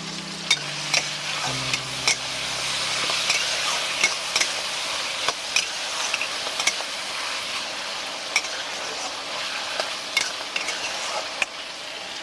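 Food sizzling steadily as it fries in a pan, stirred with a spatula that clicks and scrapes against the pan at irregular moments.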